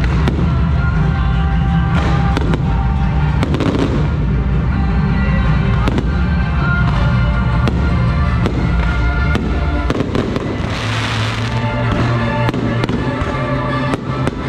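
Fireworks display: aerial shells and comets banging and crackling in quick succession, over loud music with a heavy bass. About ten seconds in, a burst of hissing crackle rises above the rest.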